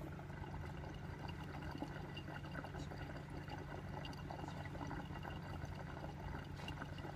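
Water bubbling steadily in a glass dab rig as a dab is inhaled through it, over a low steady hum.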